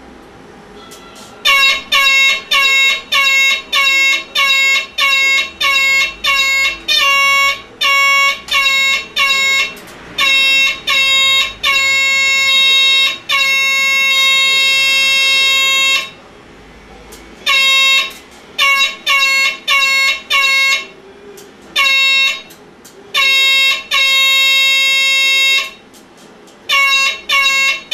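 A small motorcycle's electric horn beeped in quick short blasts, about two a second, with two long held blasts and a few brief pauses. It has a single steady buzzy note.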